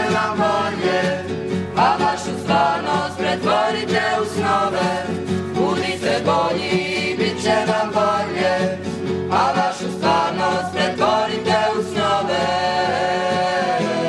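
A group of young voices singing a song together, accompanied by acoustic guitars, holding a long note near the end.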